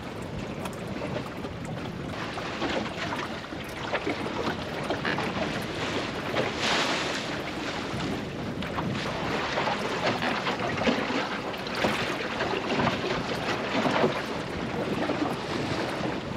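Water rushing and slapping along the hull of a small open sailing dinghy under way through choppy water, with wind buffeting the microphone. The wash swells and falls irregularly, loudest about seven seconds in.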